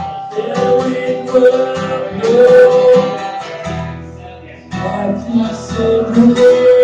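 Acoustic guitar strummed while a man sings long held notes, live, with a brief softer passage about four seconds in.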